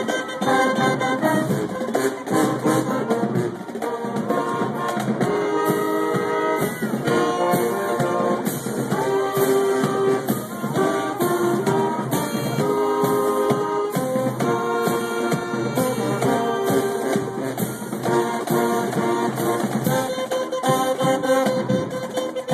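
High school marching band playing, with brass carrying the tune over a steady drum beat.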